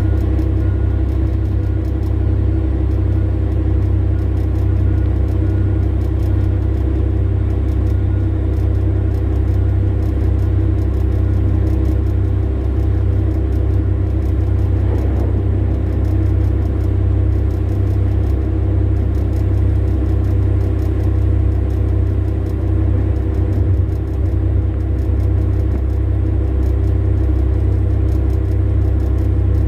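Large diesel engine idling with a steady low drone, heard from inside a haul truck's cab. About halfway through, a brief coarse swell comes as a bucketload of coal is dumped into a waiting haul truck.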